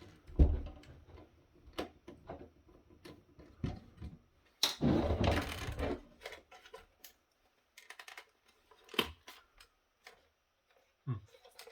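Plastic housing parts and screws of a docking station being handled and worked apart: scattered clicks and knocks, with a louder stretch of scraping or rubbing about five seconds in.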